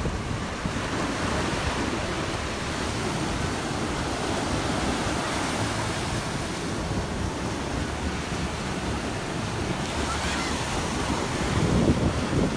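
Ocean surf washing onto a sandy beach in a steady rush, with wind rumbling on the microphone; it grows a little louder near the end.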